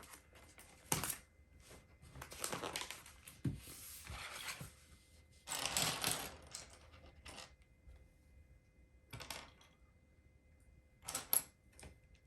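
Small plastic LEGO pieces being handled: scattered sharp clicks and clatters, with two longer stretches of rustling about two and five and a half seconds in.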